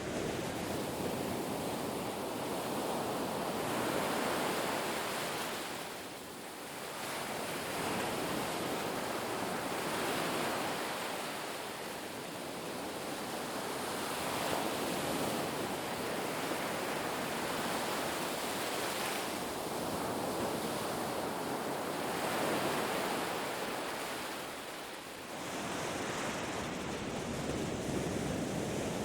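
Ocean surf: waves breaking and washing up a beach as a continuous rush of noise that swells and eases every few seconds, with brief lulls about six seconds in and again near the end.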